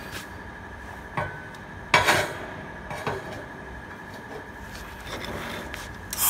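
Tack-welded 9 mm steel plate T-joint test piece handled and set down on a steel beam: a few metallic clanks and knocks, the loudest about two seconds in with a short ring.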